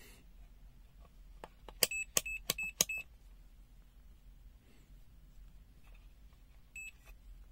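ANENG SZ06 digital multimeter's built-in beeper: a quick run of about five short high beeps with clicks about two seconds in, then one short beep near the end.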